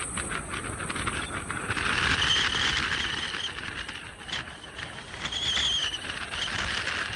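Car running, a steady rushing hiss with a whine that swells and fades twice.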